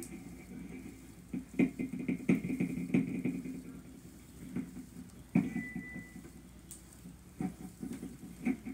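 Thick green slime being pressed and poked by hands and a small bottle, giving irregular wet squelches and pops in small clusters.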